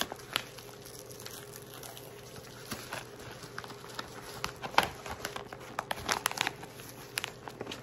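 A large mailer crinkling and crackling as it is handled and pulled at to open it. The crackles are scattered, grow busier and louder about halfway through, and the loudest comes a little before five seconds in.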